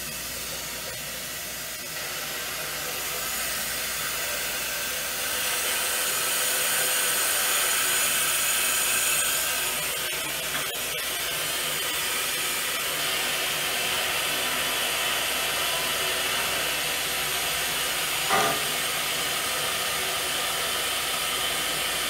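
Water rushing through a partly opened supply valve into an electric water heater tank as it refills, a steady hiss that swells a few seconds in and eases slightly about ten seconds in.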